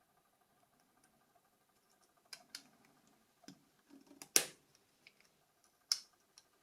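A few sharp clicks and taps from small plastic phone parts being handled and fitted together, the loudest about four and a half seconds in.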